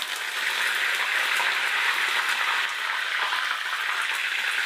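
Fresh curry leaves sizzling in hot oil: a steady frying hiss with scattered small crackles.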